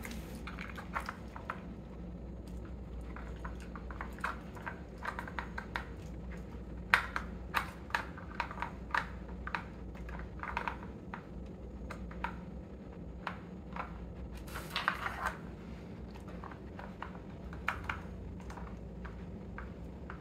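Dog working a hard-plastic treat puzzle toy: irregular clicks and clatters as its nose flips the plastic lids open and shut and pushes the board around while it hunts for treats.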